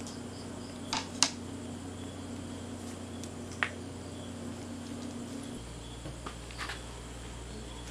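Spice marinade paste being spread by hand onto a tilapia in a wire grill basket: a few light clicks and taps, the sharpest about a second in, over a steady low hum.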